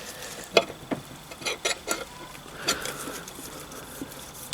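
Light, irregular metal clicks and knocks, about half a dozen, as the gear selector plate is worked loose and lifted out of a Triumph Bonneville T140 gearbox casing.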